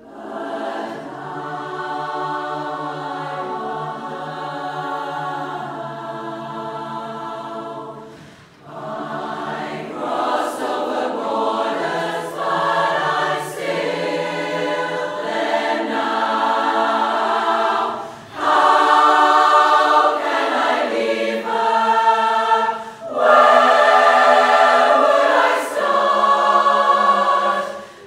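Large women's barbershop chorus singing unaccompanied in close harmony, long held chords in phrases with short breaths between them. It grows louder in the second half.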